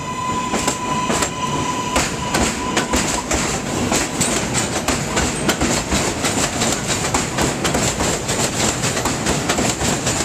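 New York City subway train running past, its wheels clacking over rail joints in a quick, steady run of clicks. A steady high whine sounds at first and fades out about three seconds in.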